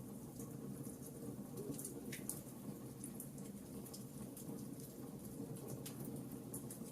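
Wood fire burning in a fireplace: irregular sharp crackles and pops, several a second, over the steady low noise of the flames.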